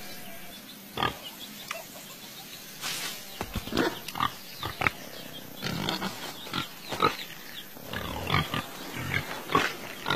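Cartoon pig sounds: a scattering of short grunts and snuffles, with a few sharp clicks among them.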